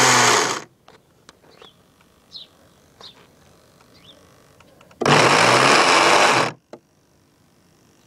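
Traxxas Blast RC boat's electric motor spinning the propeller out of the water in two short bursts of throttle. The first burst cuts off under a second in, and the second lasts about a second and a half from about five seconds in. Its hum rises and falls in pitch as the motor speeds up and slows. Faint small clicks come between the bursts.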